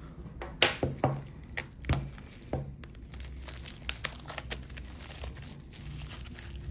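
Plastic shrink wrap being peeled and torn off a CD digipack by hand, crinkling in irregular sharp crackles that are loudest in the first half.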